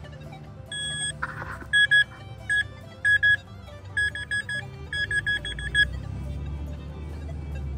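Handheld metal-detecting pinpointer beeping as it is worked through a dug plug of soil, signalling the metal target inside it. The short beeps stay at one steady pitch, some single and some in quick runs, starting about a second in and stopping about six seconds in.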